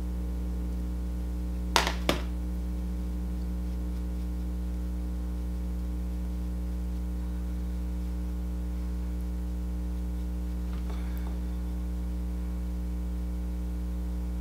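Steady low hum of room tone, with two short sharp clicks about two seconds in and a faint rustle near the end.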